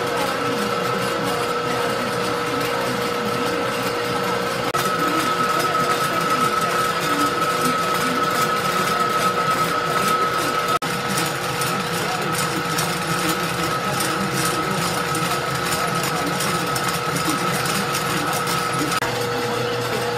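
Envelope gluing machine running steadily: a fast, continuous clatter of its rollers, belts and linkages under a steady whine. The sound drops out for an instant about halfway through.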